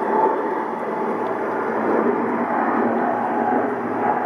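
Embraer E-Jet regional airliner on its landing approach, its turbofan engines giving a steady jet noise with no sudden changes.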